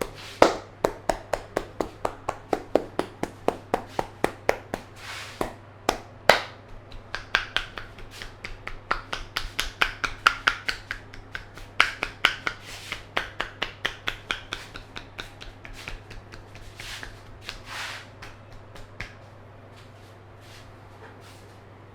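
Percussive head massage: the barber's hands strike the head in quick, sharp claps, about three a second. The strikes thin out to a few scattered ones and stop near the end.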